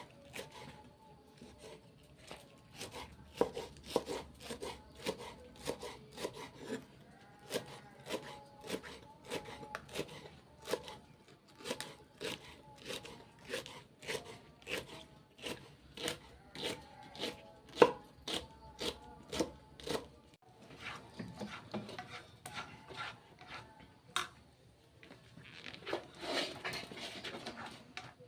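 A knife chopping on a cutting board in a steady run of sharp knocks, about two a second, while vegetables or aromatics are cut. The chopping stops about two-thirds of the way through and gives way to softer scraping and rubbing.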